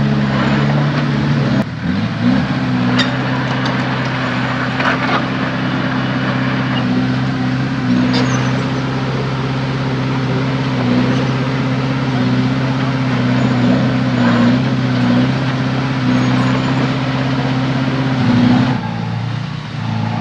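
Heavy diesel machinery engine running steadily, with a few metallic clanks over it; its note changes about two seconds in and again near the end.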